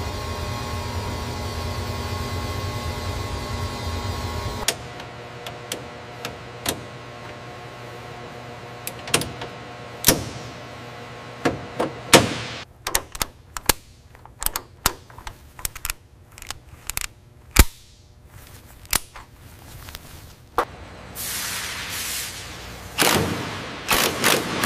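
A steady electrical hum with a low rumble that cuts off suddenly a few seconds in. Then come scattered sharp clicks and metallic knocks of tools working on fittings, in quick runs through the middle. Near the end a hiss of air rises, with a few more knocks.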